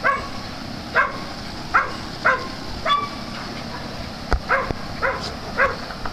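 Small dog barking in short, high yaps, about eight in a row, half a second to a second apart.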